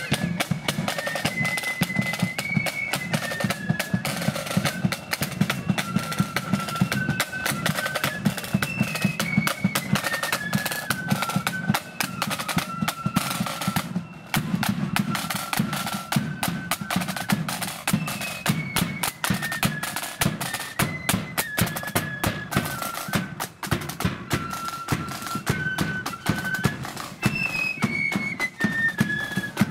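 Marching flute band playing a tune: flutes carrying the melody over fast, dense side-drum playing and bass drum beats.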